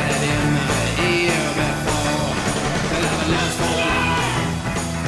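Rock song playing, a sung vocal line over a steady band beat.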